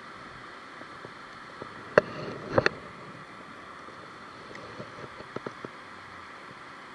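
Steady rushing of river water spilling off a low dam, with a sharp click about two seconds in, a short louder burst ending in two more sharp clicks just after, and a few small clicks around five seconds.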